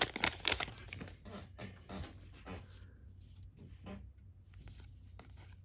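Baseball trading cards being thumbed through by hand: faint rustling, sliding and light ticks of card against card, busier in the first second and then sparse.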